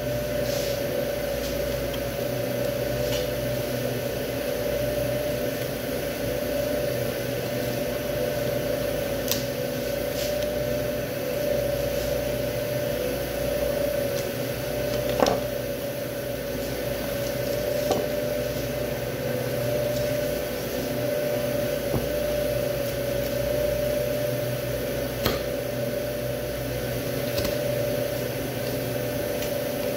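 Steady machine hum with a strong, even drone, with a few faint clicks as a knife cuts along beef ribs on a plastic cutting board.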